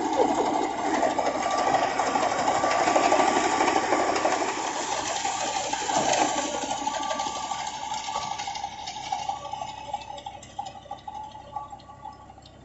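Al Ghazi tractor's diesel engine running under load with its PTO-driven wheat reaper cutting, a steady rapid mechanical chatter. It fades away over the last few seconds.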